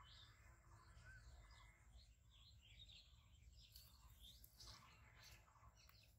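Near silence with faint bird chirps scattered throughout.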